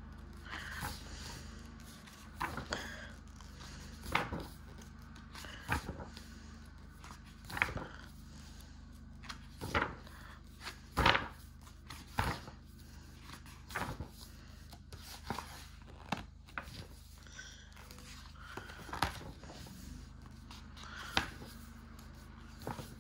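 Pages of a large hardcover art book being turned by hand, one short sharp sound every second or two, over a steady low hum.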